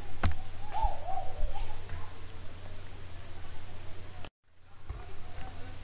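Background cricket chirping, a high-pitched chirp repeating steadily about twice a second, over a low steady hum. The sound drops out briefly about four seconds in.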